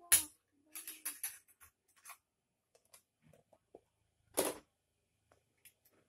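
Scattered clicks and knocks of handling noise close to the microphone: a sharp knock at the start, a run of lighter clicks over the next second or two, and a second loud, short bump about four and a half seconds in.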